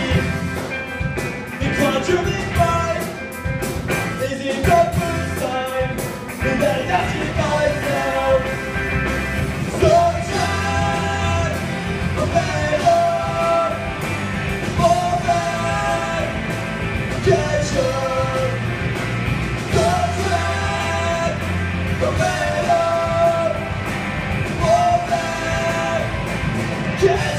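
Live rock band playing a song: electric guitars, bass and drums, with a singing voice and a short melodic phrase that repeats about every two and a half seconds.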